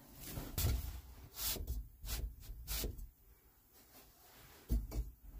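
Handling noises: rustling and a handful of soft thumps and knocks as things are moved by hand, with a quiet pause in the middle and a low thump near the end.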